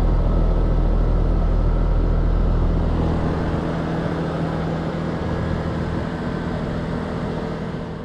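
Trane XB13 heat pump running in its defrost cycle: a steady compressor hum under a continuous hiss. A heavy low rumble eases off about three seconds in.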